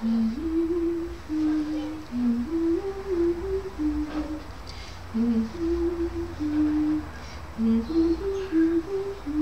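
A woman humming a simple tune, one held note at a time stepping up and down, in two phrases with a short break about four seconds in.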